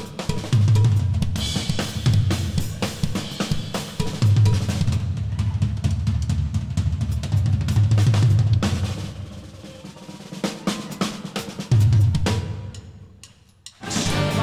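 Live drum kit solo: rapid strikes on snare, toms and cymbals over clusters of heavy bass drum thuds. It eases off in the last few seconds, with one big hit and a short lull, before the full band comes in right at the end.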